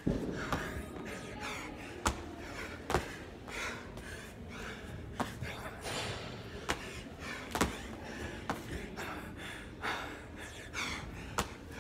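Hard, gasping breathing of an athlete mid-workout doing lateral burpees over dumbbells, with sharp thuds and slaps about every second as hands, body and feet land on the rubber gym floor.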